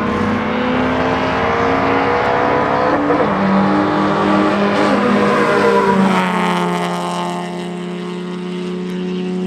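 Car engines running at a steady droning pitch, settling to a single smooth, steady note about six seconds in.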